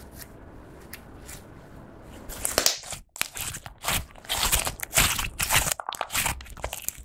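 Clear slime tinted pink with eyeshadow being squeezed and folded by hand, giving a rapid run of crackling pops that starts about two and a half seconds in after a faint start.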